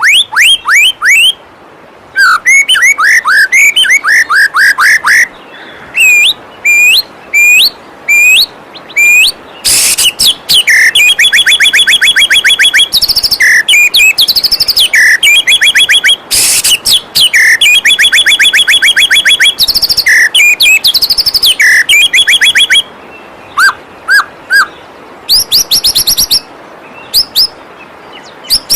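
White-rumped shama (murai batu) singing a loud, varied song of quick whistled notes and fast repeated trills in short bursts with brief pauses. Under it runs a steady rush of flowing waterfall water.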